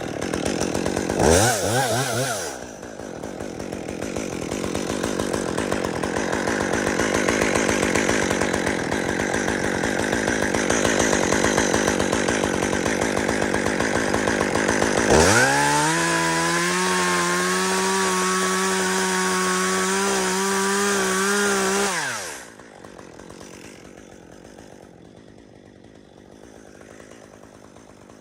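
Chainsaw revving twice, then cutting steadily into dead aspen wood. About fifteen seconds in it runs free at full throttle with a steady high note. About seven seconds later it drops back to idle.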